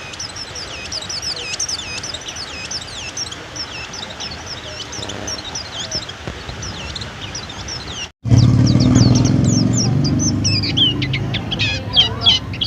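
A pleci (white-eye) singing a fast, unbroken run of high, sweeping chirps. About eight seconds in, the sound cuts out for a moment, then a loud low drone joins the song, which carries on.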